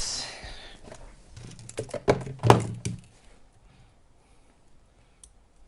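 Objects being picked up and set down on a workbench: a few knocks and thunks, the loudest about two and a half seconds in, then quiet.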